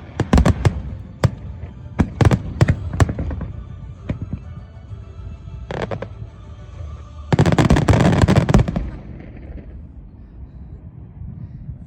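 Fireworks display: a quick run of sharp shell bursts over the first three seconds or so, a single burst about six seconds in, then a dense crackling barrage of about a second and a half around eight seconds, dying away into a low rumble.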